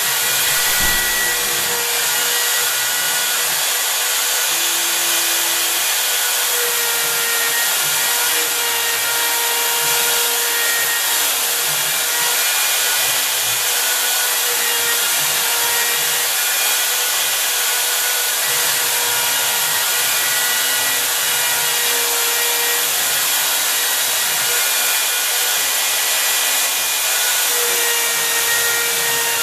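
Home-built CNC router's spindle running and its bit cutting a carved pocket into a painted wooden block: a steady machine hiss with faint whining tones that come and go as the cut moves.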